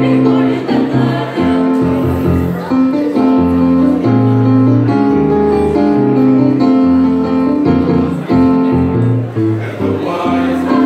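Mixed-voice high school choir singing in harmony, men's and women's voices holding chords together.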